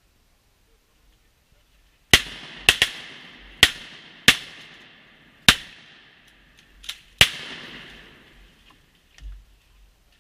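A burst of shotgun fire from duck hunters shooting at mallards: about eight sharp shots over some five seconds, starting about two seconds in. Each shot is followed by a long echoing tail.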